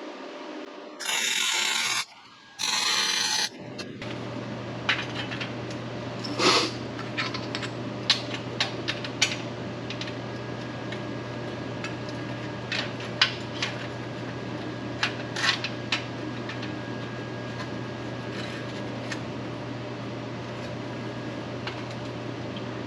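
Two short bursts of welding arc, about a second each, like tack welds on steel plate. They are followed by a steady electrical hum with scattered sharp metallic clinks of parts being handled.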